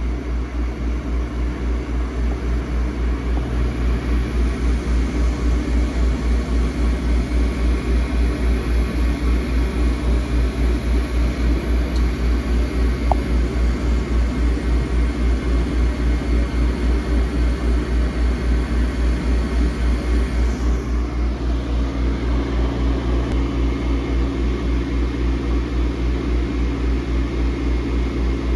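Boss Laser cutter running a cutting job. Its machine noise is a steady low hum that throbs evenly about three times a second, and the pattern shifts slightly about two-thirds of the way through.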